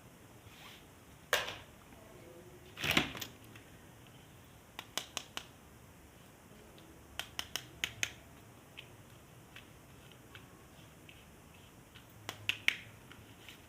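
Hard plastic clicks and taps from toys being handled, in small clusters of quick clicks, with two louder knocks in the first three seconds.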